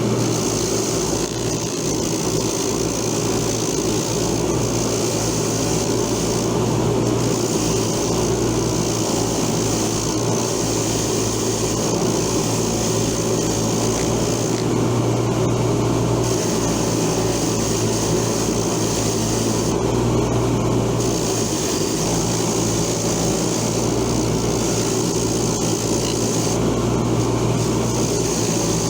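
Motor-driven wire wheel running steadily while rusty pliers are held against the spinning wire brush to strip the rust. The scratching hiss of the wires on the metal drops away briefly a few times as the work is shifted.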